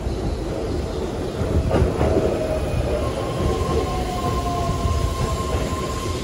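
A Keihan 13000 series electric commuter train pulling into a station and slowing along the platform, its wheels rumbling on the rails. About two and a half seconds in, two whining tones rise over the rumble, one sliding slowly lower as the train slows.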